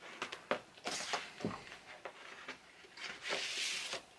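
Cardboard record sleeve being handled: a string of clicks and taps from the gatefold jacket, then a longer papery rustle near the end as the inner sheet slides out.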